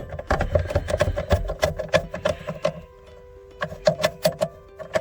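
Quick runs of sharp metallic clicks with a few dull knocks, in two spells, from a ratchet tightening the rear seat backrest bolt.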